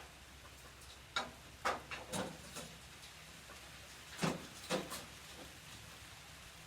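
Scattered sharp clicks and knocks from steel cart parts and hardware being handled during assembly, in two short clusters.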